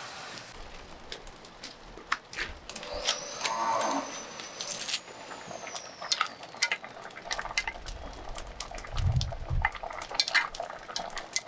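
Cattle mooing, with scattered light clicks and knocks.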